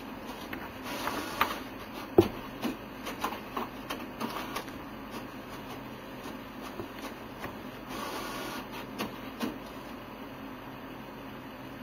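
Papers being handled at a desk: rustling and a scatter of light clicks and knocks, the sharpest about two seconds in, with a second stretch of rustling about eight seconds in, over a steady low hum.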